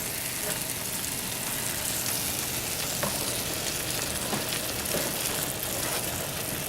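Chicken pieces in milk and spice paste sizzling steadily in a frying pan over a medium-high flame as they are stirred, with a few light knocks of the utensil against the pan.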